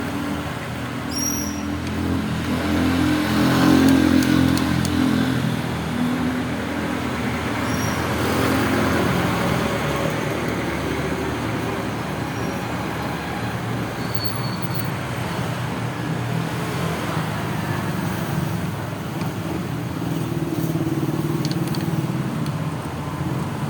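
A motor vehicle engine running with road traffic noise: a low, shifting hum over a steady wash, loudest about four seconds in.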